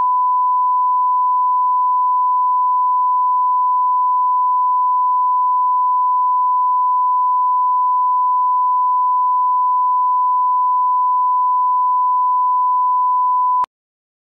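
Steady single-pitch test tone, the line-up reference tone that goes with colour bars, holding one pitch and level until it cuts off suddenly near the end.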